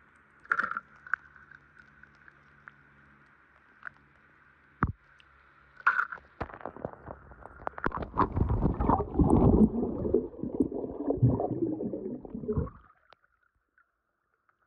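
A few splashes, then muffled bubbling and churning of pool water as the camera is held underwater, full of small clicks and knocks. It cuts off suddenly near the end.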